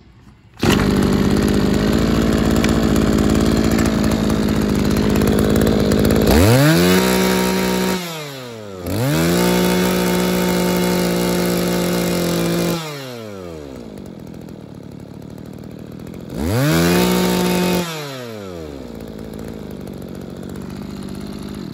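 Mitsubishi TL23 23cc two-stroke brush cutter engine on a test run: it comes in at high revs about half a second in, then is blipped between idle and high revs. The revs drop, climb for a few seconds, drop to idle, climb briefly once more and settle back to idle at the end.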